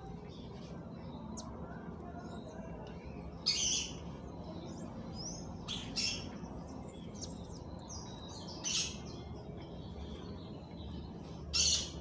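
Birds calling: four loud, short, harsh calls spaced every two to three seconds, over faint scattered twittering.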